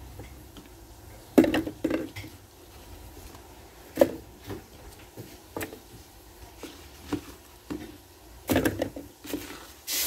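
Onion halves, garlic cloves and hot peppers dropped one at a time into a food processor bowl, giving a handful of short, dull knocks a second or more apart.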